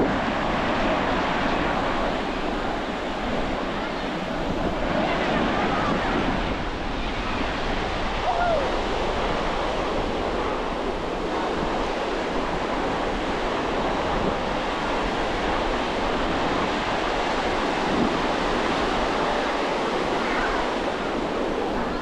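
Ocean surf breaking and washing up on the shore in a steady wash, with wind buffeting the microphone.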